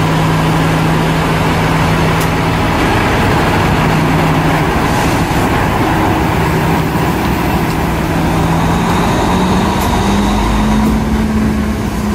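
Diesel multiple unit train's diesel engine running loudly as the train pulls out of the station, over a steady rumble of the moving train. The engine note rises a step about three-quarters of the way through as it pulls harder.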